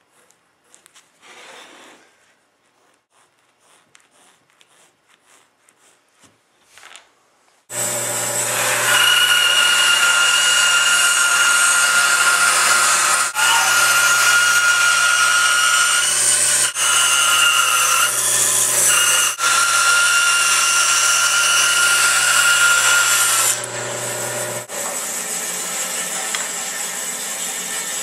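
Faint pencil scratching on a wooden blank, then a band saw starts about a third of the way in and cuts a circle out of the wood, its steady hum topped by a high cutting whine with three brief breaks. Near the end the cutting whine stops and the sound drops to a quieter steady running noise.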